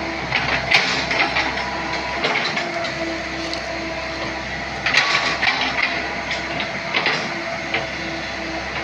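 Komatsu PC78UU excavator running under work, its engine and hydraulics holding a steady drone with a pulsing whine. Short bursts of clatter and scraping come through about a second in, again around five seconds and near seven seconds.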